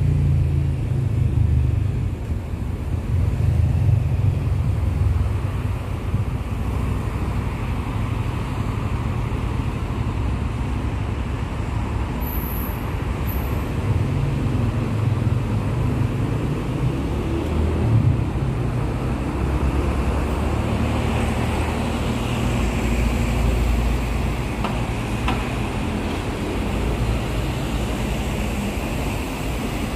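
Road traffic noise: a steady low rumble of passing vehicles that swells and fades every few seconds. Two short high-pitched tones sound about twelve seconds in.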